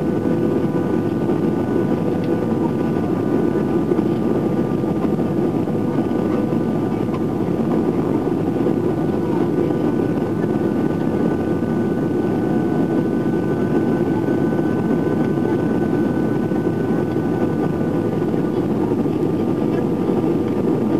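Steady cabin noise inside an Airbus A320 on approach: the jet engines and rushing airflow make a constant deep rush, with a few faint steady whining tones above it.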